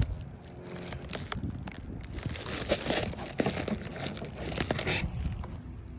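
Irregular rustling and crinkling, like plastic or paper being handled, with scattered small clicks and knocks throughout.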